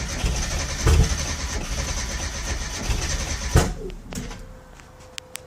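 Mazda Miata 1.6 four-cylinder being cranked on the starter without catching. It backfires loudly about a second in and again at about three and a half seconds, then cranking stops. The no-start and backfiring follow the install of a VVTuner VVT controller.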